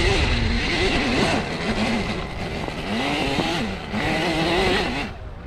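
Husqvarna EE 5 electric mini dirt bike's motor whining as it rides, its pitch rising and falling with the throttle, over heavy wind rumble on the microphone. It drops away near the end.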